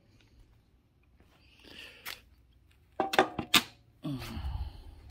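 Several sharp metal clanks about three seconds in, from the just-removed valve cover of a Toyota 3RZ-FE engine being handled and set down on the floor. A quieter rough noise follows near the end.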